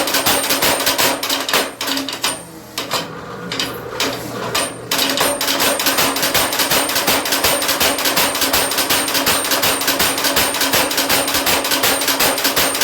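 Power hammer striking a hot railroad spike in a fast, even run of blows as the spike is drawn out. The blows ease off about two seconds in and pick up again about five seconds in.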